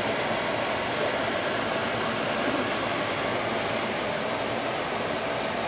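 Steady, even whooshing noise of a running fan with a faint hum, typical of a kitchen exhaust fan running over the stove.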